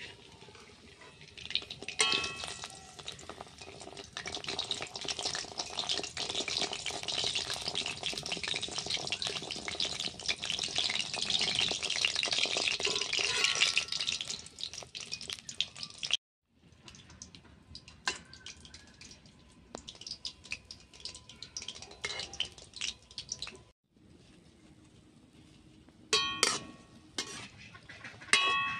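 Langcha deep-frying in oil in a metal karahi: steady crackling sizzle, loudest through the first half and quieter after a cut partway through. A slotted metal spoon clinks against the karahi once early on and a few times near the end.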